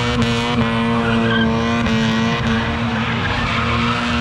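A car doing donuts: its engine held at steady revs while the rear tyres squeal and spin on the pavement.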